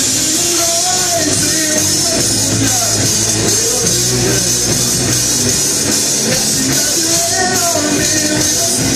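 Amateur rock band playing live through a PA: electric guitars, bass and drum kit, with a lead singer singing over them.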